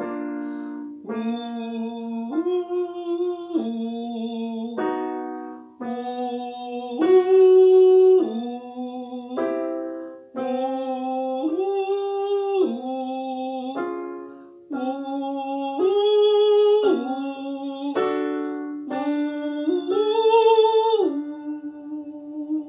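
A man sings a vocal warm-up exercise, accompanied by chords on a Roland E-09 electronic keyboard. The short phrase steps up and back down, and it is repeated about six times, each time a little higher.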